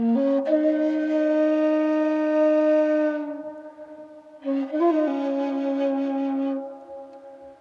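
Background music: a low, breathy flute playing long held notes in two phrases, the first sliding up into its note at the start, the second coming in about four and a half seconds in with a quick ornament.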